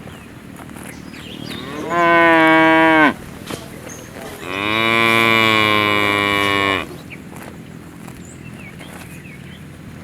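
A cow mooing twice: a short moo of about a second, then a longer, steady moo of over two seconds. Each drops in pitch as it ends.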